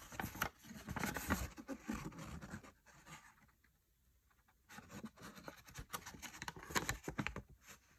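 Crinkling and rustling of a folded paper letter handled in gloved hands, in two stretches with a short pause between them.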